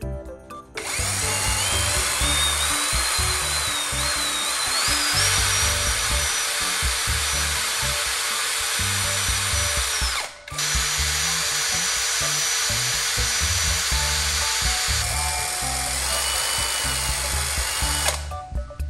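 Cordless drill spinning an old battery's carbon core rod against sandpaper to polish it. The motor whine rises in pitch over the first few seconds and holds steady. It stops briefly about ten seconds in, then runs again until near the end.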